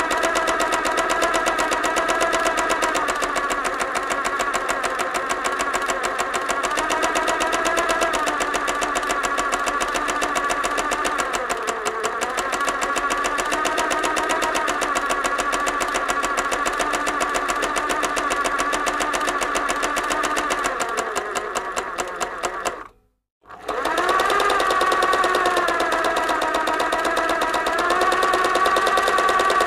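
Sewing machine running fast and steady, its motor whine wavering slightly in pitch. About 23 seconds in it winds down and stops, then starts up again within a second.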